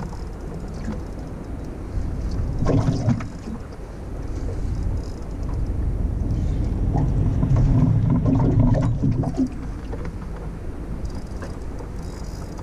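Steady low rumble of wind and water around a small boat, with two louder spells of knocking and handling noise, about two seconds in and from about six to nine seconds in.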